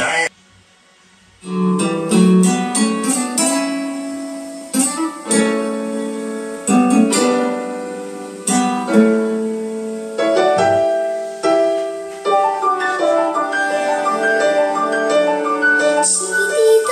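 Instrumental music of plucked, quickly fading notes, starting after about a second of near quiet, with fuller, busier playing near the end.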